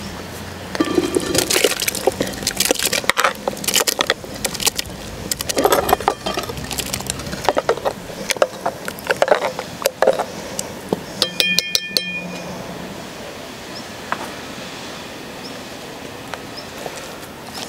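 Spoon scraping and knocking against a cast-iron pot as soup is stirred, after food is tipped in from a clay bowl. About eleven seconds in, a few sharp metallic clinks ring briefly.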